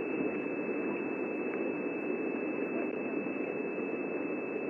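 Steady hiss with a thin, constant high-pitched whine, even throughout, with no distinct calls or knocks.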